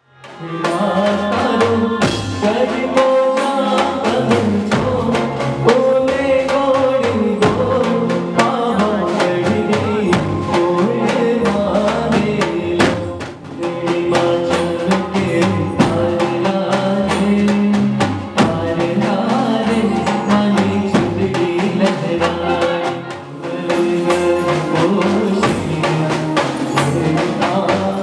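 Live garba band music: drums and percussion keeping a steady dance rhythm under a melody with singing. The loudness dips briefly twice.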